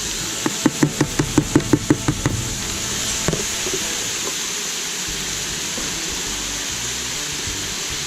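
Chopped onions, celery and garlic sizzling steadily in a pot of hot oil and duck drippings. About half a second in comes a quick run of about a dozen knocks, then one more a second later.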